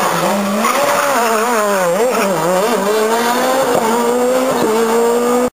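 Rally car taking a hairpin, its engine pitch dipping and rising several times as it brakes, slides round and changes gear, then climbing steadily as it accelerates away. The sound cuts off abruptly near the end.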